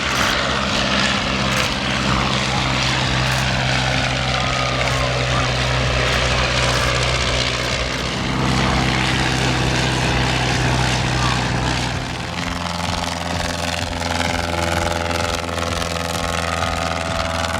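Piston engine of an early vintage propeller aircraft running steadily. About twelve seconds in, its note changes and the low end takes on a regular pulsing beat.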